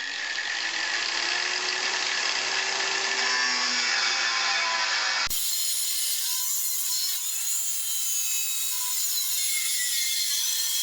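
A power tool cutting steadily, heard in two stretches joined by a sudden change about halfway through.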